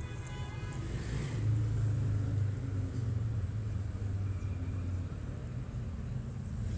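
Low rumble of a motor vehicle going by, swelling about a second and a half in and then slowly easing off. A brief high-pitched tone sounds in the first second.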